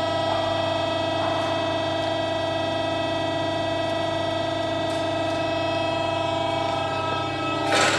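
Hydraulic press brake's pump running with a steady hum and whine of several fixed tones. A short noisy burst, a hiss or rattle, comes near the end.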